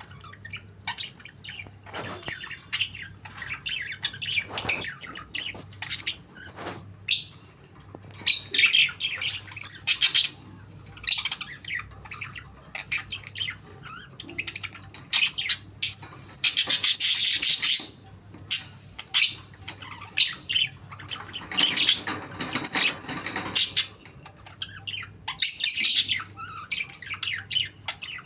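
Budgerigar chattering: a run of quick, high chirps with a few longer harsh squawks in the middle.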